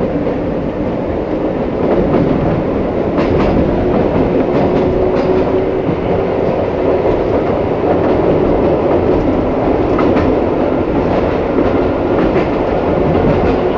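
Izuhakone Railway 1100 series (ex-Seibu 701 series) electric motor car heard from its cab, picking up speed after a station stop: a steady rumble of motors and wheels that grows louder about two seconds in, with a few sharp clicks of the wheels over rail joints.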